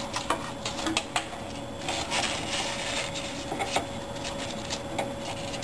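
Handling noise of a wire cable being pulled through a cable duct in a plywood 3D-printer frame: light rubbing and rustling with scattered small clicks and knocks.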